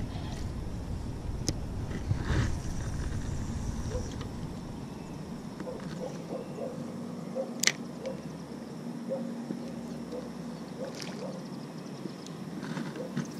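Spinning fishing reel being cranked to retrieve line: a faint steady whir with light, regular ticking through the middle and later part, and one sharp click about eight seconds in. A low rumble of wind or handling on the microphone comes in the first few seconds.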